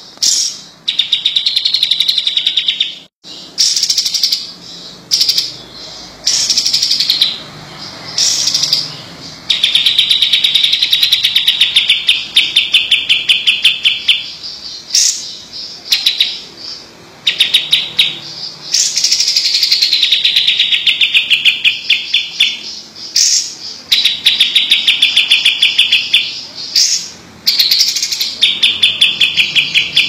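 Caged kapas tembak, a bulbul, singing vigorously: fast, high chattering trills of rapidly repeated notes, each from under a second to several seconds long, in repeated bouts with short pauses.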